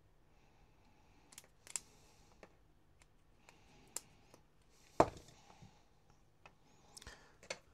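Small screwdriver tightening the brass screws of a plastic chocolate-block terminal connector on mains cable leads: faint scraping and a few light clicks. A sharper knock about five seconds in is the loudest sound, with a few more clicks near the end.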